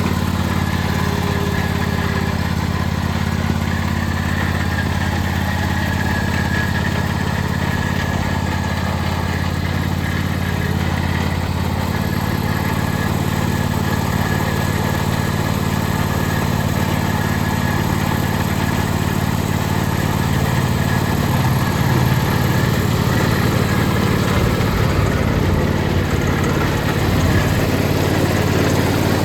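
John Deere X500 lawn tractor's engine running steadily at idle, getting a little louder about two-thirds of the way in.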